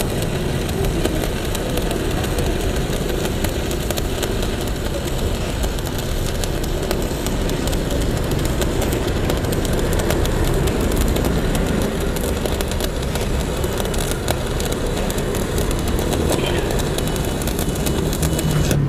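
Stick (arc) welding: a 4 mm electrode burning a continuous bead on steel plate from a BTEC three-board inverter welder set to its highest amperage. The arc crackles steadily without a break.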